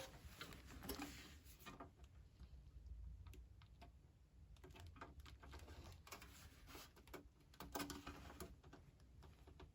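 Near silence with faint, scattered small clicks and taps.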